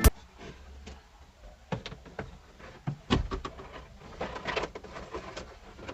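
Scattered light knocks and clicks of small parts and panels being handled, with a quick run of taps about three seconds in.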